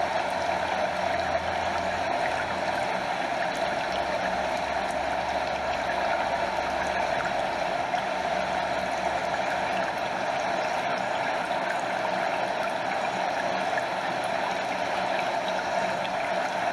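Stream water running over a small waterfall: a steady, unbroken rush of flowing water.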